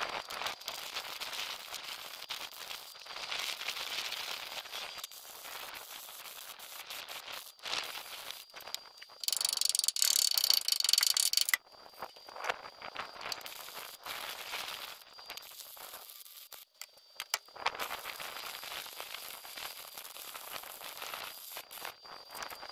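Stick (arc) welding on a steel truck chassis: irregular crackling, with one loud steady sizzle of the arc lasting about two and a half seconds a little before the middle.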